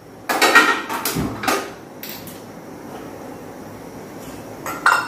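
A gas stove burner being lit with a handheld spark lighter: a few sharp clicks and knocks, then a faint steady hiss from the burner.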